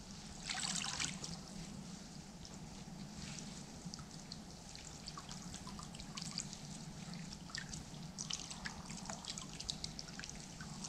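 Water trickling and dripping from a mesh keepnet as it is drawn up out of the river, with a short splash about half a second in and scattered drips after.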